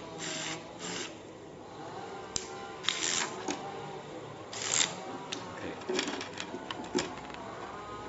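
Corded electric screwdriver whirring in short bursts during the first second, driving small screws into a camera circuit board. Then sharp clicks and a few louder clattering knocks as the small plastic and metal parts are handled.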